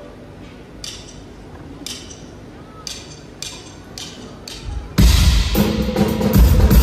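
Drummer's count-in of sharp stick clicks, two slow then four quicker, followed about five seconds in by the full folk-fusion band coming in loud with drum kit and bass guitar.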